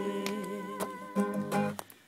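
Acoustic guitar strummed in a song, with a voice humming along in long held notes; the playing and humming break off just before the end.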